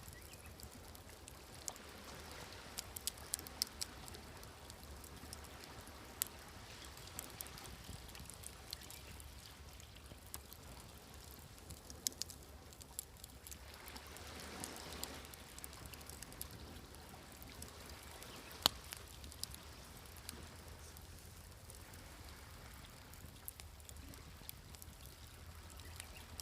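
Wood fire crackling with scattered sharp pops over the soft steady wash of sea waves. One wave swells and recedes about halfway through, and the loudest single pop comes about two-thirds of the way in.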